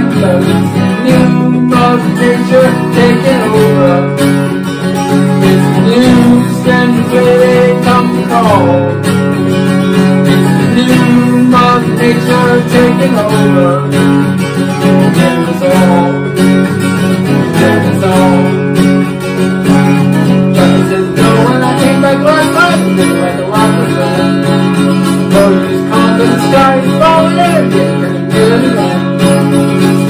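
Acoustic guitar being strummed, playing a rock song.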